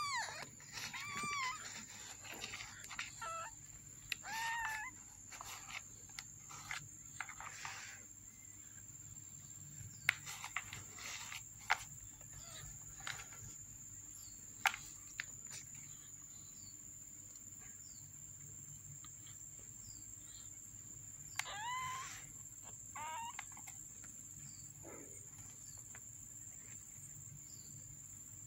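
Newborn kittens mewing in short, high, wavering cries: a few near the start, one about four seconds in, and a cluster of several past the middle, with a few sharp ticks between them and a faint steady high whine underneath.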